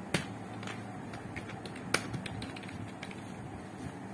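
Computer keyboard keystrokes: a dozen or so irregular clicks, the sharpest about two seconds in, over a faint steady low hum.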